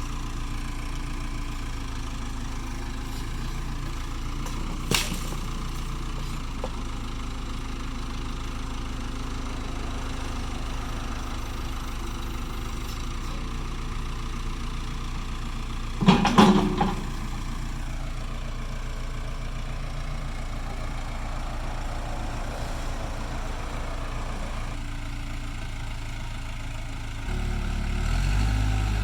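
Case 580E backhoe's diesel engine idling steadily, with a sharp click about five seconds in and a loud crack or thump around sixteen seconds. Near the end the engine grows louder and deeper, as if throttled up.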